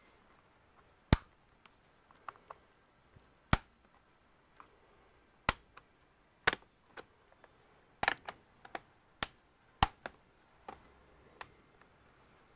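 Irregular sharp clicks and taps of small tools and plastic laptop parts being handled during disassembly, about fifteen in all, some loud and some faint.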